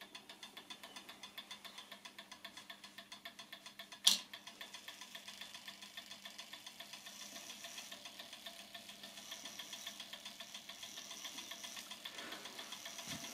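German-made mechanical clock movement ticking rapidly and evenly, about five ticks a second. One sharp, loud knock with a brief ring comes about four seconds in.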